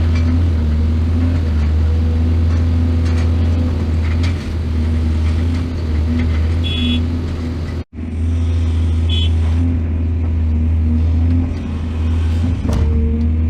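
Heavy diesel engine of a mining excavator running steadily under load, with a deep hum, a few light knocks and two brief high squeals. The sound cuts out abruptly for an instant about halfway through, then the engine continues.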